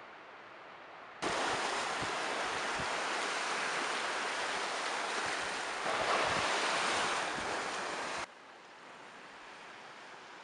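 Small waves washing onto a sandy beach, a steady rush of surf with wind buffeting the microphone; it starts suddenly about a second in, swells louder about six seconds in, and cuts off sharply after about seven seconds, leaving a faint wind hiss.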